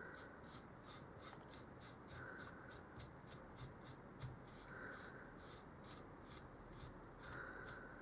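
Faint rhythmic scratching strokes, about three a second.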